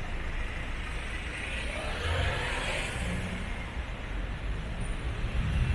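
Motor traffic: low engine rumble throughout, with a vehicle swelling past about two seconds in. Near the end a louder, deeper engine rumble builds as another vehicle comes close.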